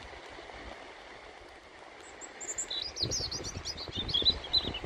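A small songbird singing a quick run of short, high, varied notes, starting about two seconds in, over a steady hiss of sea and wind. Low thumps of wind on the microphone come in the second half.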